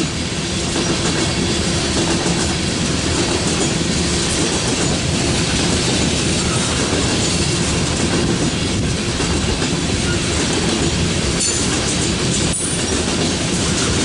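Freight train's coal cars rolling past at steady speed: steel wheels clattering and rumbling over the rail joints, with a steady squeal-like tone running under the clatter.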